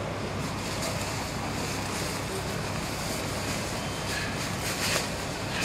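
Steady, even background noise of a railway station platform, with a couple of faint clicks near the end.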